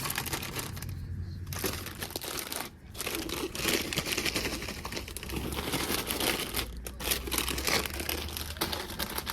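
Plastic snack wrappers crinkling and rustling as packaged snacks are handled and pushed into the spiral coils of a snack vending machine.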